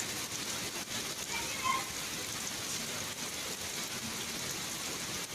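Steady rain falling, an even hiss of drops, with a few faint voices briefly about a second in.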